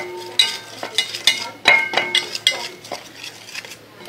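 Metal utensil mixing egg into flour in a stainless steel bowl, knocking against the bowl about twice a second, each knock leaving a brief metallic ring.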